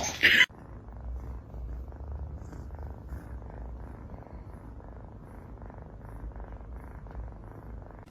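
A cat purring steadily, a low continuous rumble, after a brief loud burst of noise at the very start.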